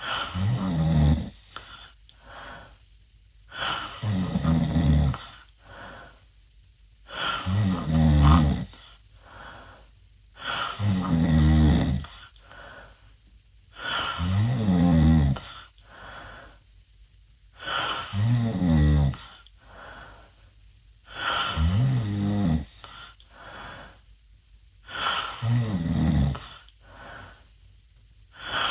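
Loud snoring of a sleeping 16-year-old boy breathing with his mouth open. There are about eight snores, one every three and a half seconds, each lasting over a second with a pitch that rises then falls, and quiet breathing between them.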